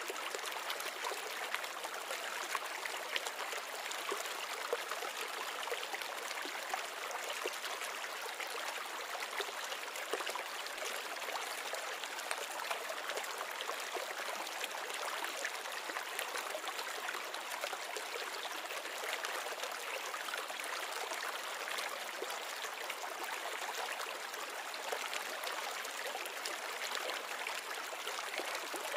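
Steady trickling and bubbling of water circulating in a glass-bowl nano reef aquarium, with many tiny bubble pops.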